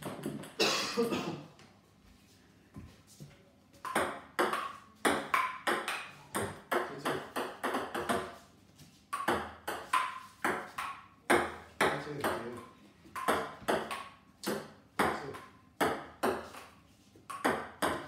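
Ping-pong ball clicking back and forth in rallies, bouncing on a wooden dining table and struck by paddles, a couple of hits a second. The rallies start about four seconds in, with brief breaks between points.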